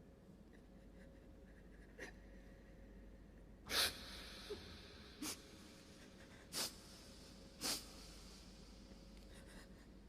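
Four short, sharp breaths or sniffs about a second apart, the first and loudest about four seconds in, over faint room tone.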